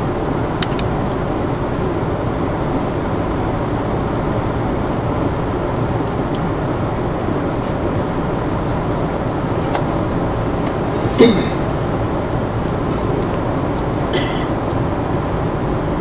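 Steady hum and rumble inside a commuter train halted on the line after an emergency stop. A few faint clicks, and one short, sharp sound about eleven seconds in.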